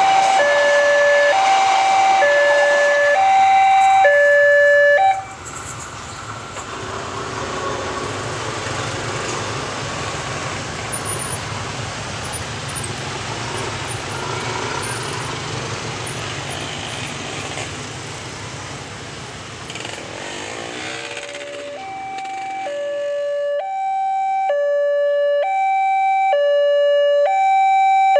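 Railway level-crossing warning siren sounding a slow hi-lo alarm of two alternating notes; it cuts off suddenly about five seconds in. A passing train follows as a steady rumble of wheels on rail, and near the end the same two-note crossing siren starts again and grows louder.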